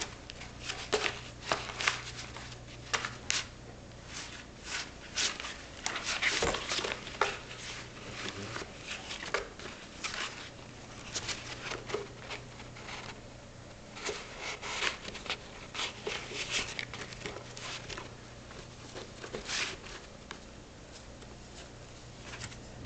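Shetland sheepdog puppy chewing a toy hedgehog while lying in a cardboard box: irregular scratchy clicks, crackles and rustles from teeth on the toy and the cardboard, coming in uneven clusters.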